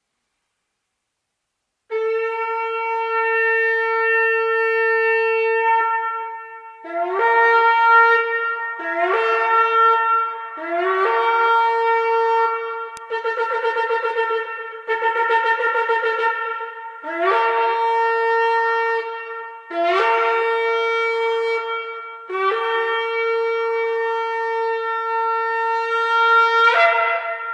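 A ram's-horn shofar sounded as a sequence of calls, starting about two seconds in. First comes a long steady blast, then shorter blasts that each swoop up at the start, a fluttering run of quick notes in the middle, and more long blasts, the last one rising at the end.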